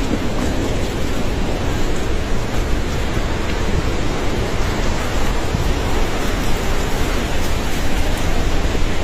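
A river in flood rushing past, a loud, steady noise of churning water with no let-up.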